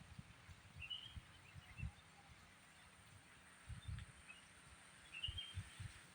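Quiet outdoor ambience with two brief high bird chirps, about a second in and again near the end, over scattered soft low thumps.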